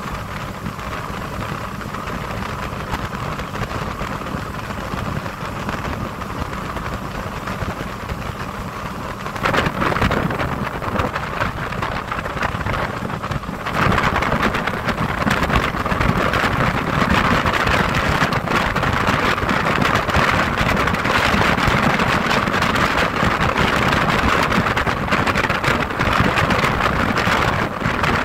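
Motorboat underway across open water: engine drone mixed with wind rushing over the microphone and water hissing along the hull. It grows louder about a third of the way in, and louder again about halfway through.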